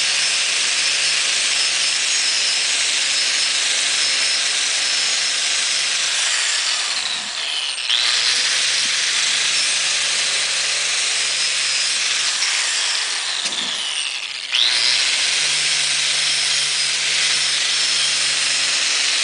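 Electric angle grinder running under load, its brush attachment scrubbing rust and grime off a sheet-metal drill press gearbox cover. It is a steady, harsh scrubbing over the motor's hum, and the pitch dips briefly twice, about seven and fourteen seconds in.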